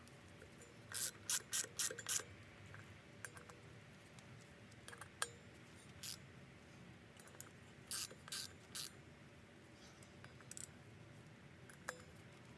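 Hand tools working on a motorcycle's rear wheel bolts: three short clusters of sharp metallic clicks and rasps, with a few single ticks between them.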